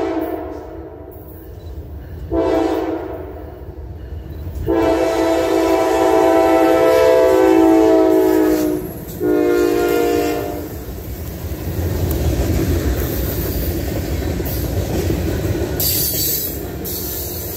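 Norfolk Southern diesel freight train passing close by. The locomotive's air horn sounds a series of blasts: one ending just as it starts, a shorter one, a long one of about four seconds and a short last one. The locomotives then rumble past, followed by the steady rolling rumble and clatter of tank and hopper cars.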